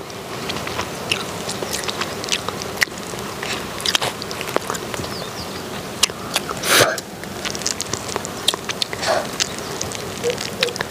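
Close-up chewing and biting of fresh wild honeycomb, with many small sticky clicks and crackles as the waxy comb is pulled apart by hand. A brief louder rustle comes about seven seconds in.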